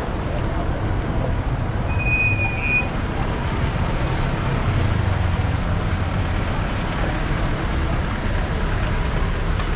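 Steady low rumble of street traffic and buses, with a brief high-pitched horn toot about two seconds in.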